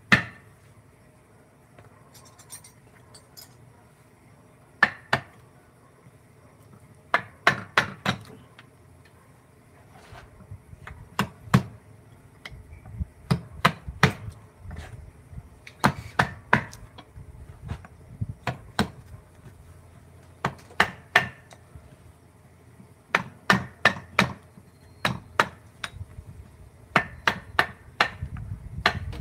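Wood-carving mallet striking a chisel into wood: sharp taps in irregular runs of two to five, with short pauses between runs.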